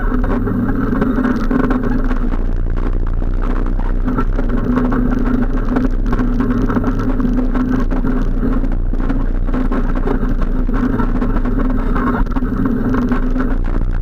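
ATV engine running steadily at a slow crawl, loud and close, with no revving.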